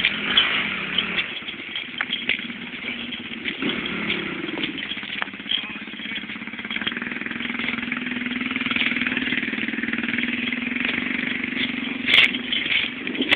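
A steady low engine drone over a constant hiss, strongest from about four seconds in, with a single click near the end.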